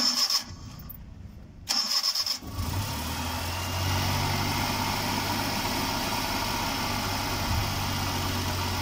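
Suzuki F10A 1-litre four-cylinder petrol engine being started: the starter motor whirs briefly, then cranks again, and the engine catches about two and a half seconds in and settles into a steady idle. It idles without the earlier noise, now that the timing belt and timing-belt tensioner bearing have been replaced.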